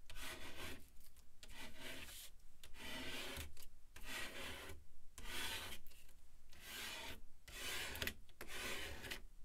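Repeated rubbing strokes across a sheet of craft vinyl, smoothing it flat, about one swipe a second.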